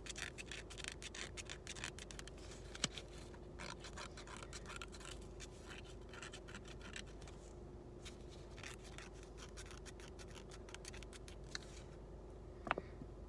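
Scratch-off lottery tickets being scratched: faint runs of quick, short scraping strokes over the ticket's scratch coating, with a couple of sharper clicks, over a faint steady hum.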